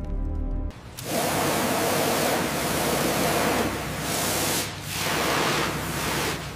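A high-pressure water jet hissing steadily as it blasts barnacles and corrosion off a metal aircraft fuselage. It comes in about a second in, after a short stretch of music that cuts off, and dips briefly about five seconds in.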